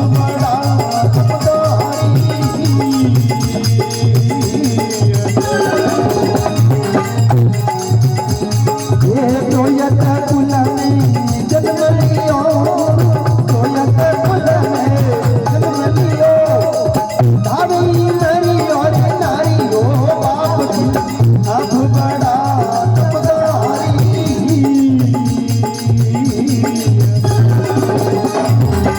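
Indian devotional folk music playing without singing: steady percussion with a shaker-like rattle under a melody instrument.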